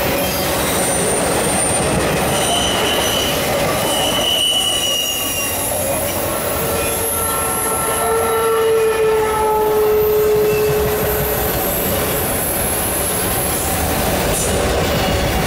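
Freight train of autorack cars rolling past close by: a steady rumble of wheels on rail, with wheel squeal in several long, steady tones that come and go, loudest around the middle.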